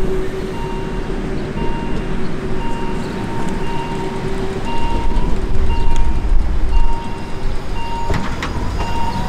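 Narrow-gauge electric train running with a low rumble that grows louder about halfway through, while an electronic warning signal beeps steadily about once a second. A few sharp clicks come near the end.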